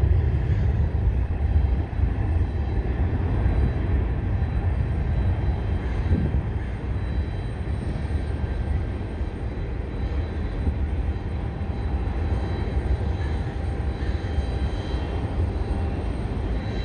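Boeing 737-800's CFM56-7B turbofan engines at takeoff thrust: a steady low rumble through the takeoff roll, liftoff and climb-out, easing slightly toward the end.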